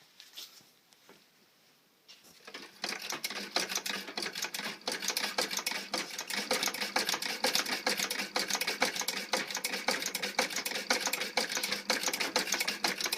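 1906 Singer 29-4 leather patcher sewing machine running under treadle power, its needle and stitch mechanism clicking rapidly and steadily. It starts about two and a half seconds in, after a quiet moment.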